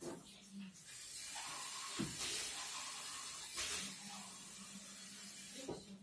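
Cold tap water running into a cup, a faint steady hiss that starts about a second in and swells briefly a couple of times.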